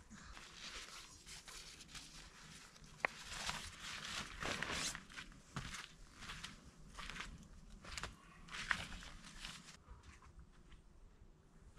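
Irregular rustling and scuffing from camping gear being handled and packed away, with a sharp click about three seconds in and another later on.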